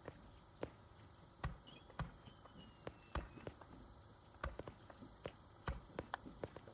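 Fireworks bursting at a distance: about a dozen sharp bangs and pops at irregular intervals, with a faint whistling tone gliding slightly downward from about a second and a half in.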